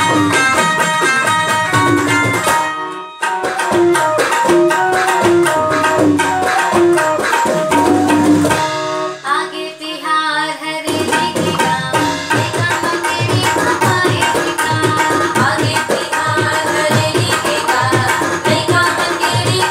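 Women singing together to harmonium, electronic keyboard and tabla. The tabla drops out briefly about halfway and comes back with a steady beat.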